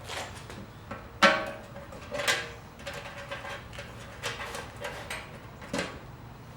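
A few knocks and clunks as a custom motorcycle seat pan is handled and set in place for a test fit, the loudest about a second in, some with a short ring.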